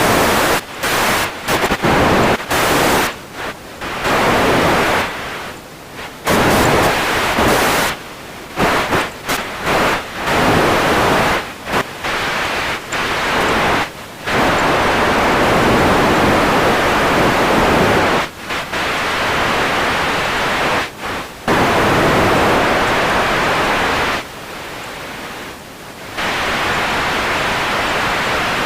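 Radio static: a loud hiss that keeps cutting out and jumping in level abruptly, sometimes several times a second, between longer unbroken stretches, with a quieter, thinner patch about three-quarters of the way through.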